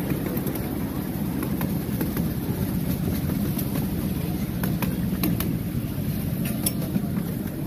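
Steady low rumble with scattered light clicks and taps: movement and handling noise while walking along a path with a handheld camera.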